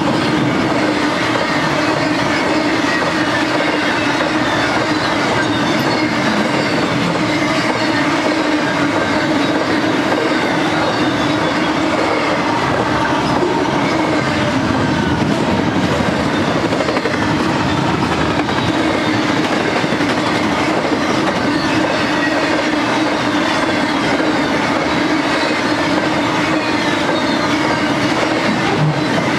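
Double-stack container and trailer cars of a freight train rolling past close by: steady, loud noise of steel wheels on rail, with faint high squeals from the wheels.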